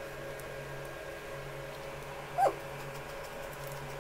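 One short, high yelp that rises sharply in pitch, about two and a half seconds in, over a steady low hum.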